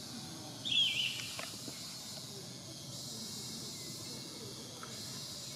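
Steady high-pitched insect drone, with one short, high, curling chirp about a second in.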